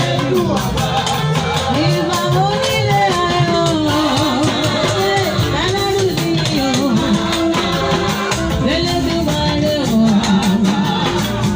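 Church choir singing a praise song with instrumental accompaniment and a steady percussion beat.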